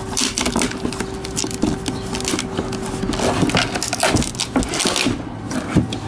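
Shrink-wrapped skateboard decks being handled in a cardboard box: plastic wrap crinkling and rustling, with irregular scrapes of the decks against each other and the cardboard, and a sharper knock near the end.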